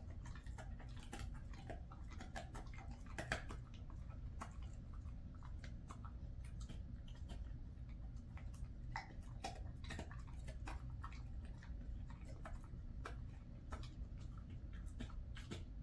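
A Jindo dog chewing a jerky treat: faint, irregular clicks and crunches of teeth working at it, over a steady low room hum.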